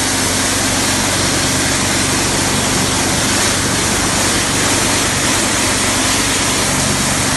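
Pressure washer running steadily: the continuous hiss of the high-pressure water jet hitting artificial grass over the steady hum of the machine's motor.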